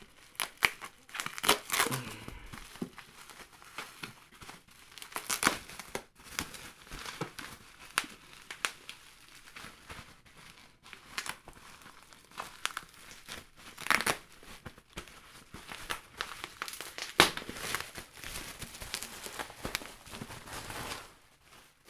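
Bubble wrap being pulled off and unwrapped by hand: irregular plastic crinkling and rustling with sharp crackles and snaps scattered throughout, the loudest a little after two, five, fourteen and seventeen seconds in.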